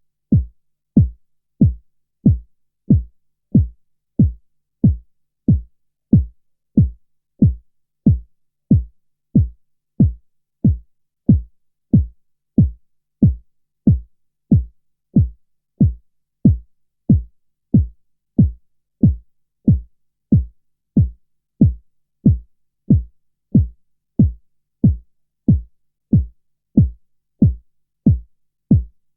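Subwoofer playing bass-only low-frequency-effects channel audio: a steady beat of deep thumps, like a kick drum, about one and a half a second, each a quick downward sweep with no treble at all.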